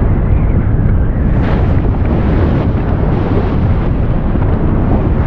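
Erupting volcanic vent throwing up lava: a loud, steady deep rumble.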